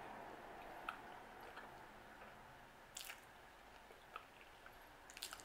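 Faint mouth sounds of someone chewing soft pancake with Nutella: scattered small wet clicks and squishes, a little louder about three seconds in and again near the end.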